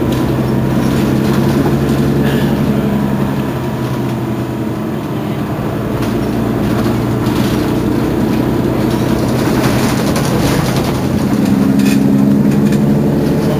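Mercedes-Benz Citaro Facelift city bus standing with its engine idling: a steady low hum that grows a little louder near the end.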